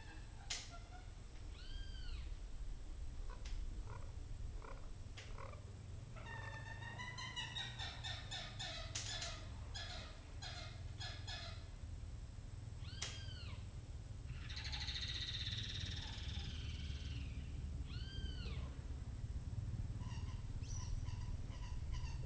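White-headed marsh-tyrant calling: short arched notes that rise and fall, given singly several times, with a quick run of rapid notes in the middle and a harsher rasping burst a little later. A steady high-pitched whine sits beneath the calls.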